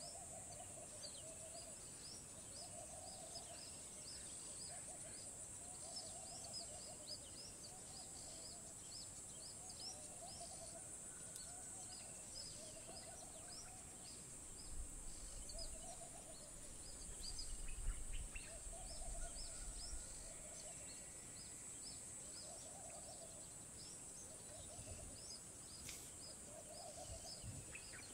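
Dusk wildlife ambience: a steady high-pitched insect drone with many quick chirps over it, and a low call repeated evenly about every second and a half. A low rumble comes in briefly about halfway through.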